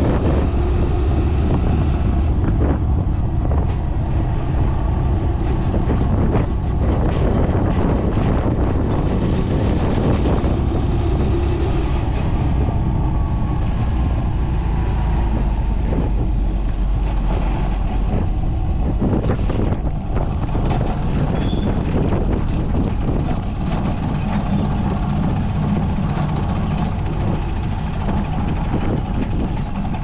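Motorcycle running steadily on the move, with heavy wind rumble on the microphone and occasional short knocks.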